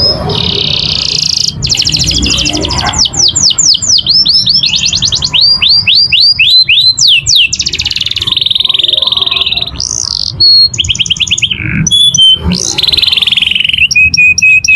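Domestic canary singing continuously: fast rolling trills alternate with runs of quick down-swept whistles and held high rolls, the 'gacor ngerek' rolling song.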